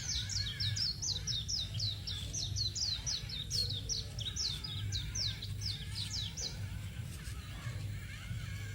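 A bird chirping rapidly: a fast run of short, high, downward-sweeping chirps, about four a second, that breaks off about six and a half seconds in. A steady low hum lies underneath.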